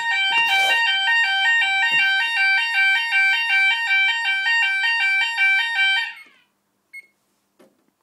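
Fire alarm sounder on a Gent Xenex 2 system, set off from a manual call point, sounding a loud two-tone alarm that switches rapidly back and forth between two pitches. It cuts off suddenly about six seconds in, as the panel silences it, and a short high beep follows a second later.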